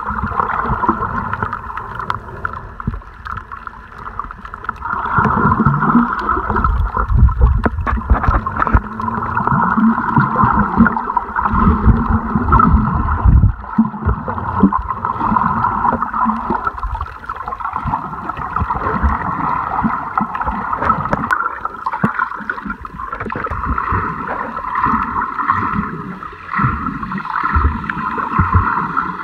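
Water sloshing and gurgling around a snorkeler's camera, over a steady drone, with heavier low surges of water through the middle.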